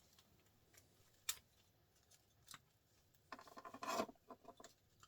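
Small printer motor being pried apart by hand: a sharp click, then a second or so of metal scraping and clicking as the steel clips holding its copper winding are worked loose.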